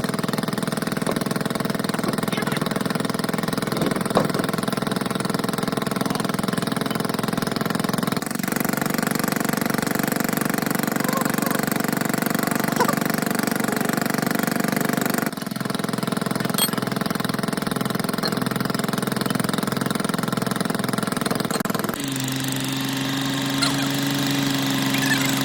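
A motor-driven workshop machine running steadily with a droning hum. The sound changes abruptly three times, and in the last few seconds a lower, stronger hum takes over.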